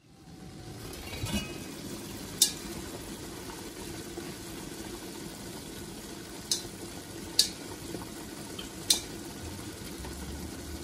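Water boiling in a stainless steel steamer pot with the lid off, steaming a tray of rice cakes: a steady bubbling hiss. A few sharp clicks break it, the loudest about two and a half seconds in and three more in the second half.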